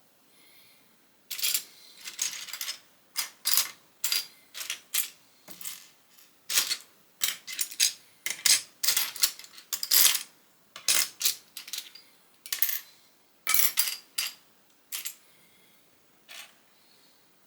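Loose Lego plastic pieces clicking and clattering as they are handled: a quick, irregular run of sharp clicks that starts about a second in and stops a couple of seconds before the end, with one faint click after.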